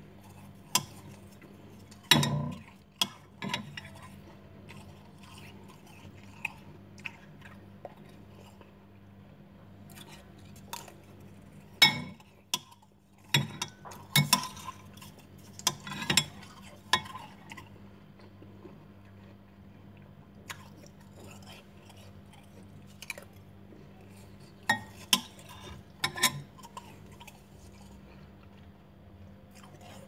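Metal spoon clinking and scraping against a glass bowl of loose freezer frost, mixed with crunching as the frost is chewed, in irregular bursts of sharp clicks. A steady low hum runs underneath.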